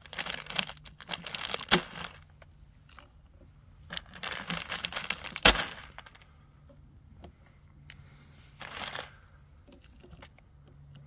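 Dry instant-noodle block being broken into pieces and dropped into the pot, with crinkling of the plastic wrapper: two stretches of crackling and rustling, a sharp snap about five and a half seconds in, and a short rustle near nine seconds.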